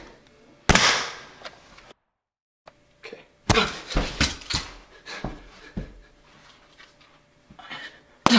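Nerf blasters firing in a foam-dart fight: a loud pop with a trailing hiss, then a quick run of sharp clicks, pops and knocks, and another sharp hit near the end.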